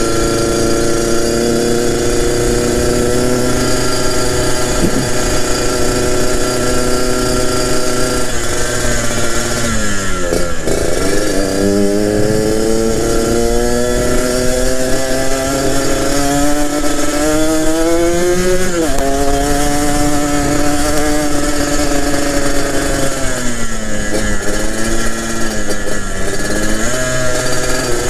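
Yamaha RX-King's two-stroke single-cylinder engine with a B2M racing exhaust, heard while riding. It holds a steady note, falls away about ten seconds in, then climbs in pitch under acceleration until its note drops sharply, as at a gear change. It then runs steady again with a brief dip near the end.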